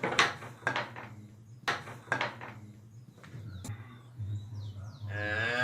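Several sharp knocks and clunks over a low steady hum, then near the end a cow begins to moo.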